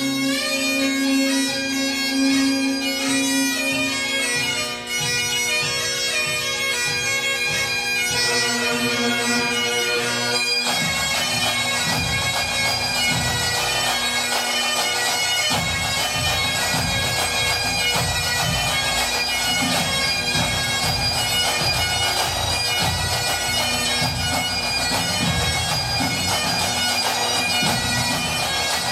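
Bagpipes playing a tune over their steady drone, with drums beating beneath; the sound becomes fuller and the drumming denser about ten seconds in.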